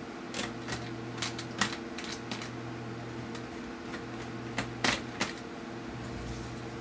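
Small screws being driven back into a laptop's plastic screen bezel with a screwdriver: a scatter of sharp little clicks and ticks, a cluster of three near the middle. A steady low electrical hum runs underneath.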